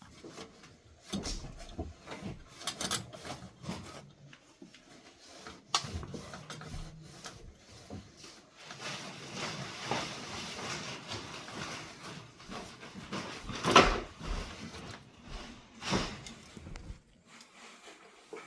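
A plastic pipe being cleaned and handled: scattered scrapes, rubs and clicks, a few seconds of steady rubbing in the middle, and a sharp knock a little past halfway.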